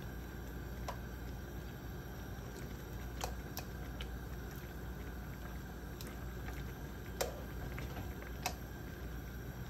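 Broccolini being turned by hand in a hot nonstick frying pan on a gas stove: scattered sharp ticks and pops, about six over several seconds, over a steady low hum.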